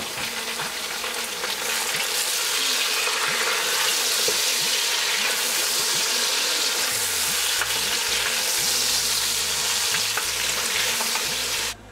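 Lamb pieces sizzling in hot oil with fried onions in an aluminium pot, stirred with a wooden spoon: the meat searing as it goes in. The steady sizzle cuts off abruptly just before the end.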